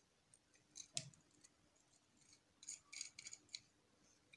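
Faint small metallic clicks and scrapes as a nut is turned by hand onto the screw terminal of a quartz heater rod: one tick about a second in, then a cluster of quick clicks about three seconds in.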